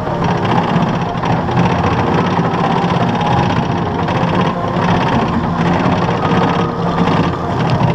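Wild mouse roller coaster car running along its steel track, with a steady rumble of wheels.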